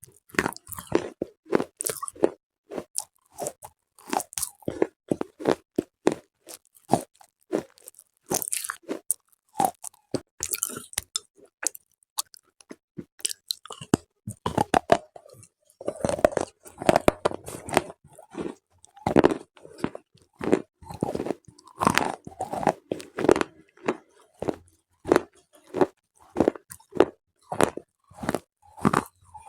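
Slate pencils being bitten and chewed close to the microphone: a rapid run of sharp, dry crunches, with a short pause near the middle.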